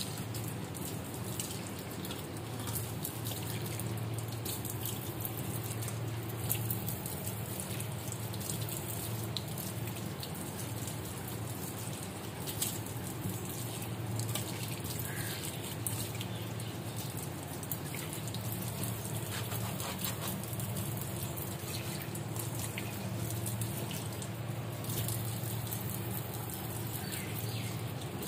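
Tap water running into a stainless steel kitchen sink and splashing as a hand rubs the basin clean, with scattered small drips and knocks.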